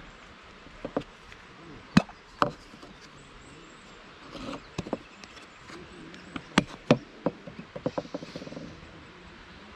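Round hinged plastic bait box being handled on a wooden table: its lid clicking open and shut and the box knocking on the boards, giving irregular sharp clicks and knocks.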